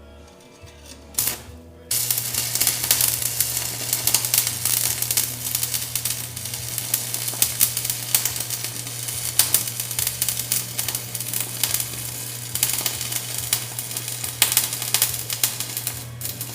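Stick-welding arc crackling and sizzling steadily for about fourteen seconds after a brief strike about a second in, with a steady hum underneath; the welder is laying a hot pass into a groove ground along a crack in a hydraulic accumulator, and afterwards judges the bead just a touch hot.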